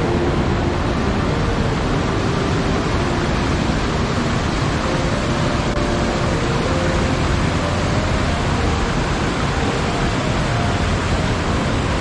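Waterfall rushing: a loud, steady roar of falling water with no breaks.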